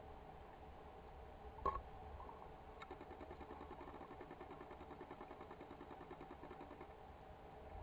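Faint underwater ambience picked up by a camera in its housing: a steady low rumble, two sharp clicks about a second apart near the start, then a soft fast ticking.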